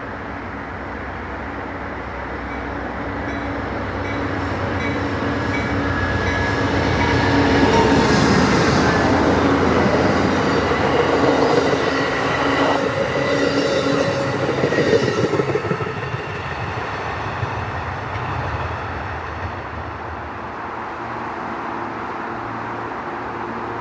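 A diesel-locomotive train passes. It gets steadily louder to its loudest about eight seconds in, then the wheels clack over rail joints before it fades after about sixteen seconds.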